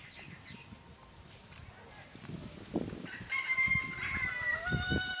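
A rooster crowing once, a long call of about two seconds starting past the middle, its pitch dropping to a lower held note for the final part.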